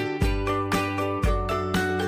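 Upbeat background music with plucked, guitar-like notes and a steady beat of about two bass hits a second.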